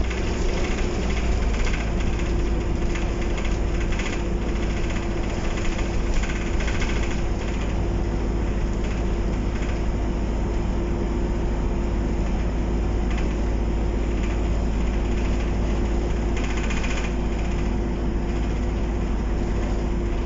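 Optare Solo diesel single-deck bus under way, heard from inside the passenger saloon: a steady low engine rumble with a constant whine above it. Interior fittings rattle on and off during the first several seconds and again briefly near the end.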